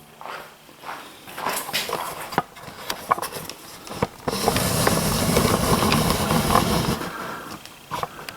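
Clicks and light knocks of metal planer parts being handled, then about three seconds of a steady rushing hiss that stops fairly suddenly.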